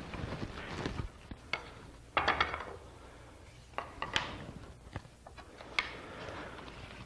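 Wooden workpieces being handled and fitted by hand: scraping and rubbing in the first second and again a little after two seconds in, with sharp wooden knocks and clicks, the clearest about four and six seconds in.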